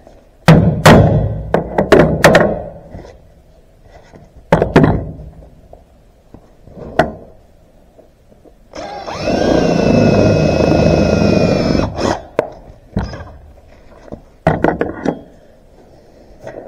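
A hammer strikes several times in quick succession, then a few single knocks follow. About nine seconds in, a DeWalt DC720 cordless drill runs for about three seconds, its motor whine rising as it spins up, as it bores through a steel plate. A few more knocks and clatter come after it stops.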